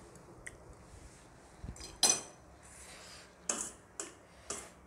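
A few sharp clinks of a metal fork against a steel serving tray and plate. The loudest comes about two seconds in, then three more follow about half a second apart near the end.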